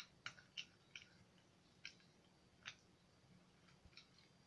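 A few faint, irregular clicks of metal spoons against glass bowls as borax slime is being stirred.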